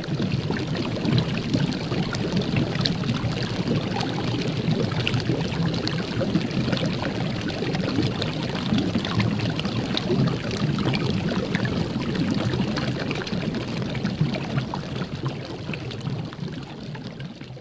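Steady liquid pouring and trickling sound, dense with fine crackles, which tails off near the end.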